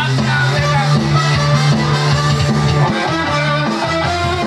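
Upbeat music with guitar and a steady beat; the bass line shifts to a new note about three seconds in.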